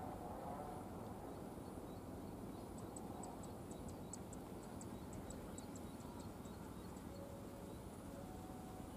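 Quiet outdoor background hum with a run of short, high-pitched ticking calls, about four a second, from about three seconds in to about seven seconds in.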